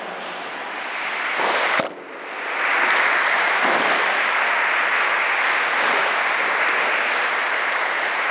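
Audience applause: clapping that builds about a second in, breaks off briefly just before two seconds, then carries on steadily.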